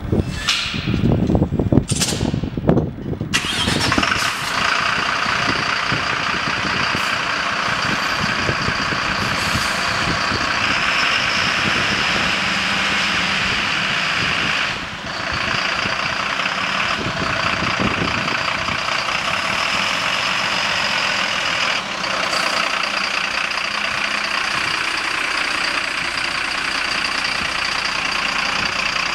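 Diesel engine of a Mercedes-Benz Axor fire engine (TLF 20/40-SL tanker) starting, with a few uneven revs over the first three seconds, then running steadily at idle as the truck slowly pulls out.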